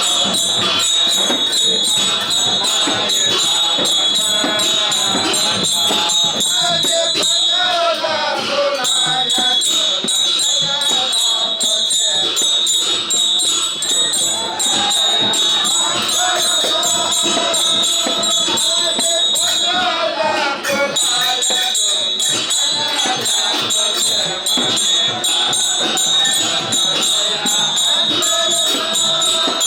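Festival procession music: rapid drum strokes under continuously jingling cymbals, with a wavering melody line on top. The cymbal ringing briefly drops out twice, about a third of the way in and again near two-thirds.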